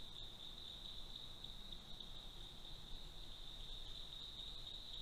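Faint, steady high-pitched trill that holds one pitch throughout, with nothing else clearly heard.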